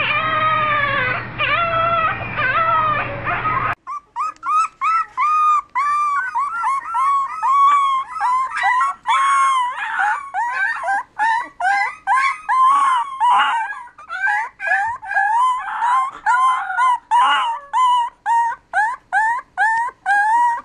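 A young puppy howling in long, wavering calls for the first few seconds. Then, after a cut, young puppies giving a quick run of short, high, rising-and-falling whimpering yips, about two or three a second.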